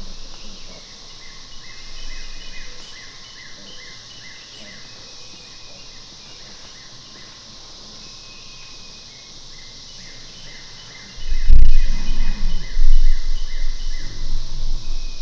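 Outdoor woodland ambience: a steady high insect drone with a rapidly repeated chirping call over it. About eleven seconds in, a loud low rumbling noise on the microphone starts and continues to the end.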